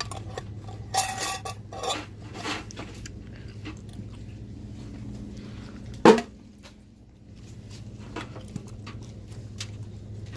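Store merchandise being handled: scattered light clinks and knocks with brief rustles, and one louder knock about six seconds in, over a steady low hum of the shop.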